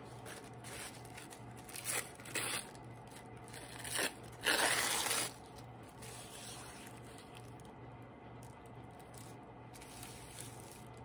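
Tissue paper being torn by hand: a few short rips about two seconds in and around four seconds, and a longer rip of under a second just after, followed by soft paper rustling as it is handled.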